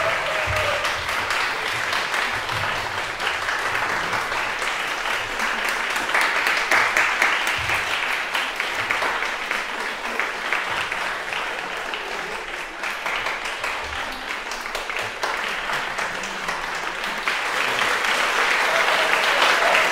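Audience applauding with continuous dense clapping, growing a little louder again near the end.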